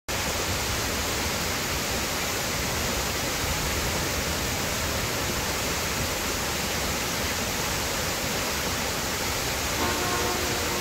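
A waterfall plunging into its pool: a steady, even rushing of falling water. Faint music begins under it near the end.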